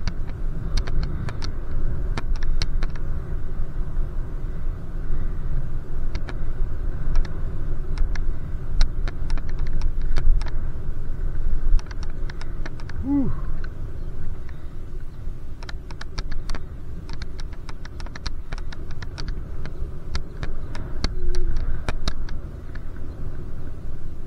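Steady low wind and road rumble from a ride on a bicycle, with scattered sharp clicks and rattles throughout, and a short chirp about thirteen seconds in.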